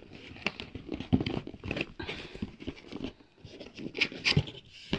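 Cardboard box being opened by hand: irregular scrapes, taps and rustles as the lid flap is worked loose, with a louder rustling scrape about four seconds in.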